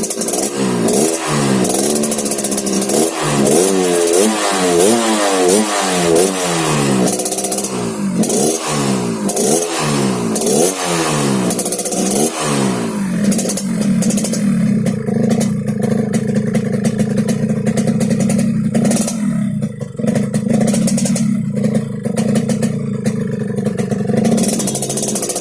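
Yamaha RX-King's single-cylinder two-stroke engine, through a growling 'ngorok' exhaust, revved in repeated quick throttle blips about once a second, then settling about halfway through into a steady idle.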